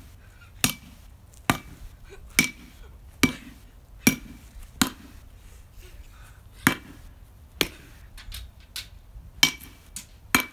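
A baseball bat striking a pumpkin again and again: about ten sharp whacks at roughly one a second, with a couple of longer gaps between swings.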